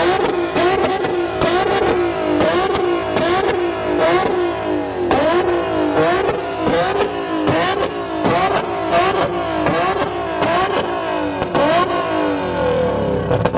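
Tuner car engine held on a two-step launch-control rev limiter, the note rising and cutting about twice a second with loud exhaust pops and bangs at each cut.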